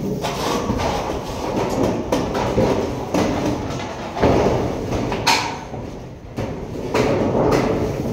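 Corrugated colour-coated steel roofing sheets being pushed up and slid over one another and the steel frame: a continuous rumbling scrape of thin sheet metal, with a few louder surges as the sheets shift.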